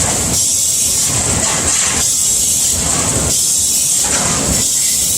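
Amada AC255NT CNC turret punch press running, with a steady high hiss under a repeating cycle of busy mechanical bursts about every second and a bit, separated by short lulls.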